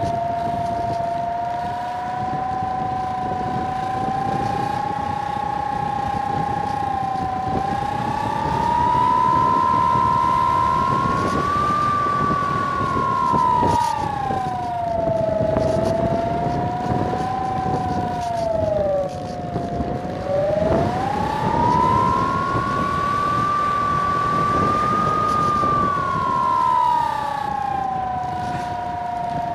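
Bixler 3 RC plane's brushless electric motor and pusher propeller whining in flight. The pitch rises and falls with the throttle, dipping to its lowest about two-thirds of the way in before climbing again. Wind rushes over the onboard microphone underneath.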